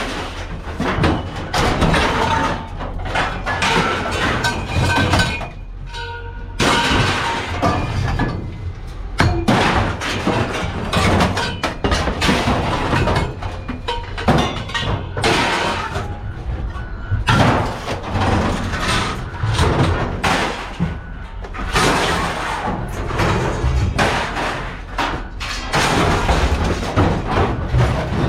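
Scrap metal being thrown down onto a pile, irregular clanks and thuds one after another, over background music.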